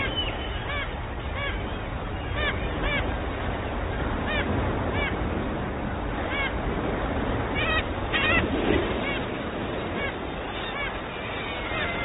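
Colony of nesting gulls on a sea cliff calling: many short nasal calls that rise and fall in pitch, repeating over a steady rushing background of sea noise, with a few louder calls about eight seconds in.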